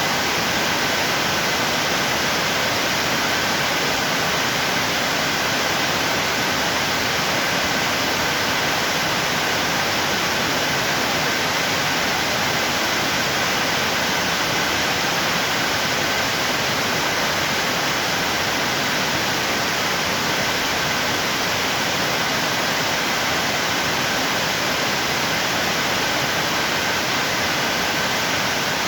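National Carioca NC470M mill-and-drip coffee maker running, a steady, even rushing noise with a faint high hum.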